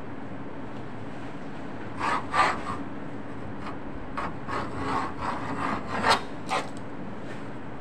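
A hand knife scraping and cutting along the edge of a piece of leather on a cutting table: a run of short scraping strokes starting about two seconds in, the loudest near the start of the run and near its end, over a steady low hum.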